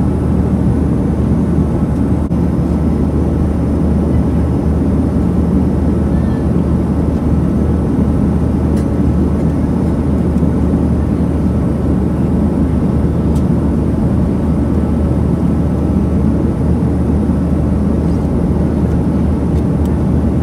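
Steady low cabin rumble of a Boeing 737-900ER in flight: the drone of its CFM56-7B engines mixed with airflow noise, heard from a seat beside the wing.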